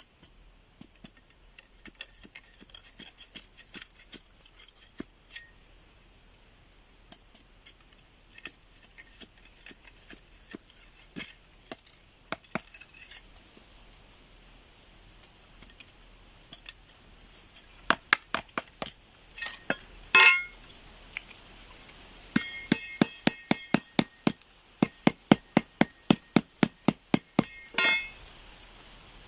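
Hand-tool work: scattered sharp taps and clinks, then a quick, even run of about three strikes a second in the last third, some strikes ringing briefly.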